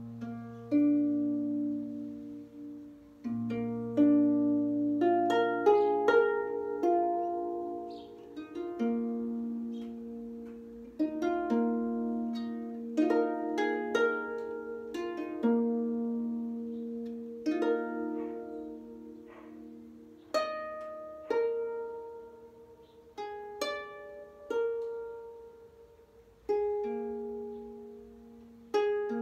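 Solo harp improvisation: slow, unhurried melody of single plucked notes and chords, each left to ring and fade away, with deep bass notes sounding under the first few seconds.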